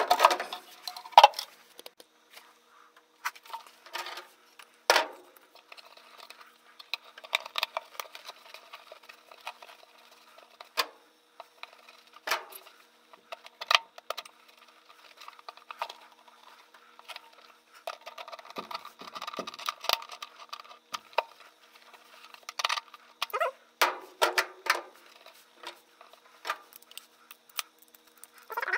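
Hands fitting a rubber coupling and metal worm-gear hose clamps onto a furnace vent pipe and tightening the clamps with a screwdriver: scattered clicks, scrapes and rustling at irregular intervals.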